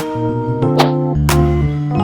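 Background music: light instrumental with bell-like mallet and keyboard notes over a steady bass line.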